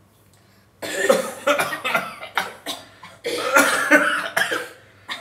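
Several people coughing loudly in rapid, overlapping fits, starting about a second in.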